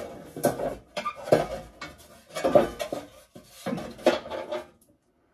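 Metal parts clinking and clattering in irregular bursts, about one a second, as they are handled and fitted together.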